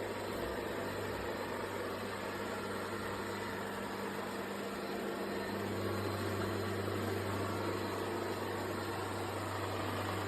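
Shark robot vacuum running: a steady motor hum with a low tone that grows louder about halfway through.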